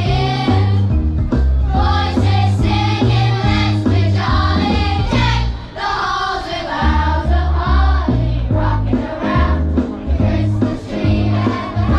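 A group of voices singing, like a choir, over a backing track with a heavy bass line.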